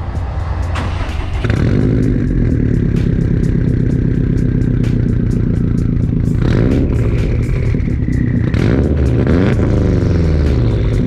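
Turbocharged Subaru boxer engine running while the car is driven, loud and steady. Its pitch glides up and down a few times between about six and ten seconds in as it revs.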